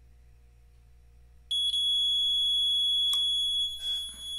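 Magneto synchronizer sounding a steady high-pitched beep that starts about one and a half seconds in: the magneto's contact-breaker points have just opened. A sharp click sounds over the beep about three seconds in.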